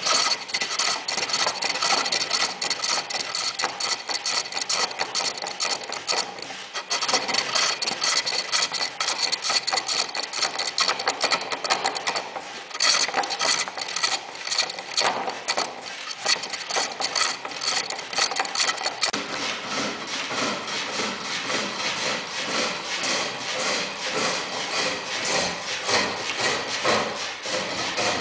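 Lathe turning: a cutting tool scraping against a spinning workpiece, a continuous rasping made of rapid ticks. It breaks off briefly twice, about six and a half and thirteen seconds in, and runs smoother from about nineteen seconds.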